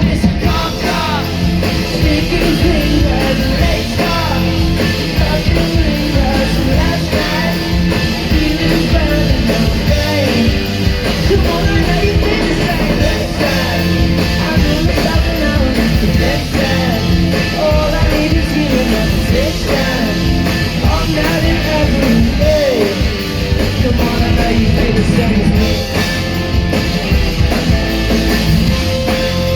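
Live rock band playing loudly: electric guitar, bass and drums keeping a steady beat, with a lead voice singing over them.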